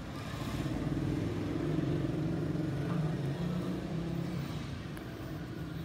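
Distant jet roar of a Boeing 777-300ER's twin GE90-115B engines at takeoff thrust as it climbs away. It is a low rumble that swells over the first two seconds and then slowly fades.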